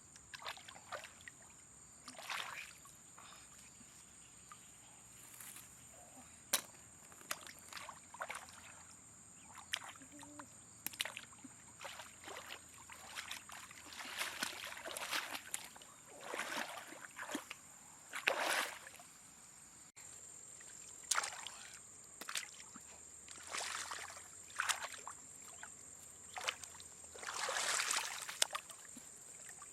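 Irregular splashing and sloshing in shallow water, likely hands or feet moving through it, in short bursts every second or so that come thicker about halfway through and again near the end. Under it runs a steady high-pitched tone.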